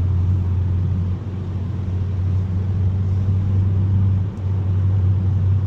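Steady low drone of a 2021 Mazda 3 Turbo cruising at a moderate, even speed, heard from inside the cabin: engine and tyre rumble on the road, with a brief dip about four seconds in.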